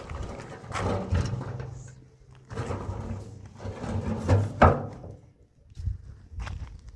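A brush scraping and scrubbing over a coated metal barrel in uneven strokes, with a few sharp knocks, the loudest a little past halfway.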